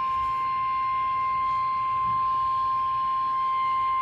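NOAA Weather Radio warning alarm tone: a single steady high-pitched tone, held without a break, played over a weather radio receiver to signal that a warning broadcast, here a severe thunderstorm warning, is about to follow.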